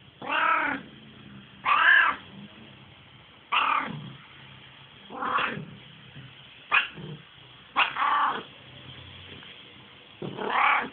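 A domestic ginger cat meowing over and over, about seven meows each rising then falling in pitch. Most are half a second or so long, and one near the middle is very short.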